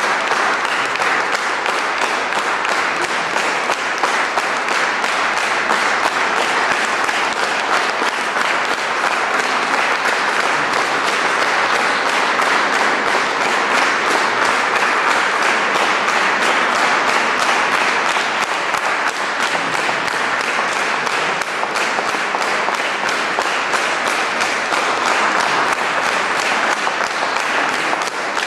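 Audience applauding: many hands clapping in a dense, even stream at a steady level.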